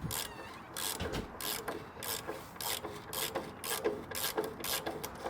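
Ratchet wrench clicking in quick repeated strokes, about two a second, turning a rust-seized firewall bolt.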